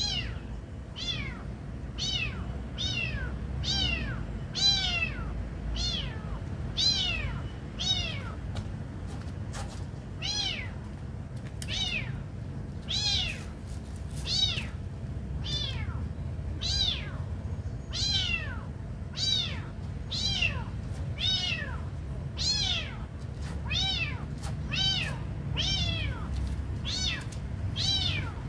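Kitten mewing over and over in high-pitched calls that fall in pitch, about one and a half calls a second without a break.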